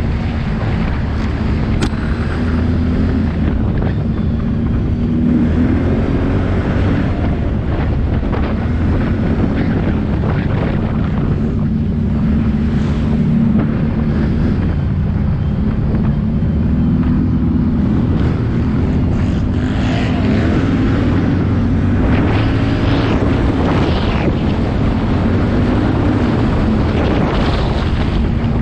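ATV engine running under way, its pitch rising and falling with the throttle, with wind buffeting the microphone.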